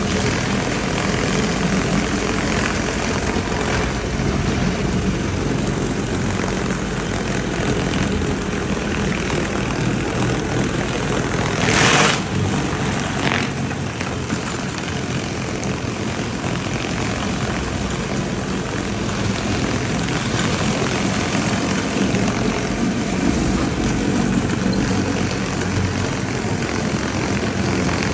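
Pressure washer running steadily, its engine humming under the hiss of the high-pressure spray on concrete. A brief louder burst of hiss comes about twelve seconds in, and a smaller one just after.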